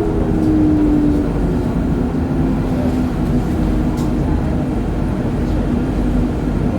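City bus running, heard from inside the passenger cabin: a steady low rumble with a whine that falls in pitch during the first second and then holds steady. A faint click about four seconds in.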